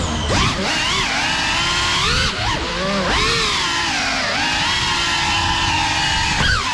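Geprc Cinelog 35 cinewhoop's brushless motors and ducted propellers spinning up from rest, then whining as it flies. The pitch swoops up and down with the throttle.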